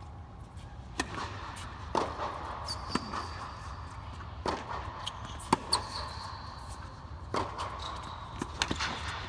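A tennis rally on an indoor hard court: racquets hitting the ball and the ball bouncing, heard as about nine sharp knocks at irregular intervals of roughly half a second to a second and a half. A steady low hum runs underneath.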